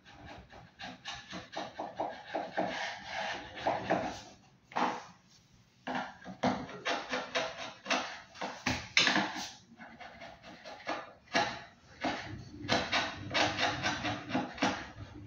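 Quick, repeated rubbing and scraping strokes on a floor, in runs of several strokes a second with short pauses between runs.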